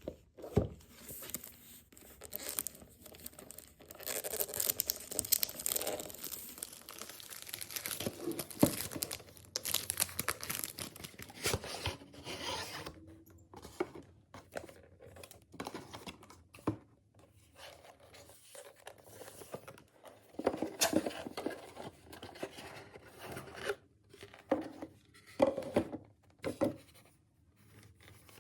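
Perfume packaging being unwrapped by hand: irregular stretches of tearing and crinkling wrapping, with sharp clicks and taps from handling the box.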